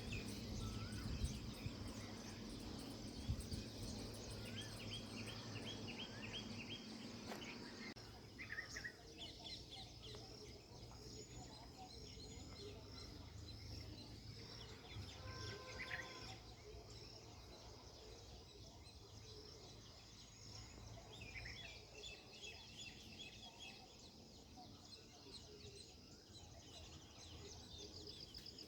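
Several small birds chirping and twittering in trees, faint, with repeated short calls and trills. A low steady hum lies under the first eight seconds or so.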